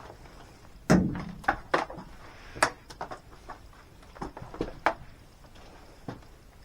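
Objects being handled and knocked about: about six separate sharp knocks and clunks at irregular intervals, the loudest about a second in.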